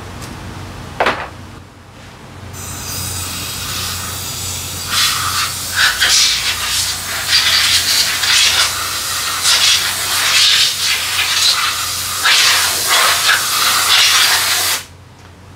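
Compressed-air blow gun blasting into the open belt-drive case of a scooter, cleaning it out: a loud hiss that starts a couple of seconds in, comes in repeated surges as the trigger is worked, and cuts off sharply near the end. A single sharp knock about a second in.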